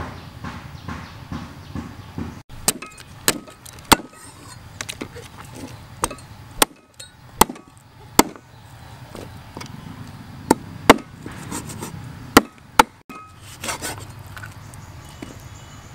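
Meat cleaver chopping a raw whole chicken on a wooden chopping board: about a dozen sharp, irregularly spaced chops that begin a few seconds in, some much louder than others.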